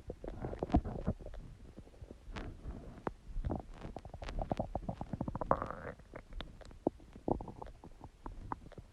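A human stomach gurgling and growling, with irregular bubbling pops and a quick run of them about four to six seconds in.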